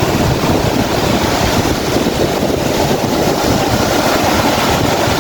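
Wind buffeting the microphone in a steady low rumble, over the wash of surf on a beach.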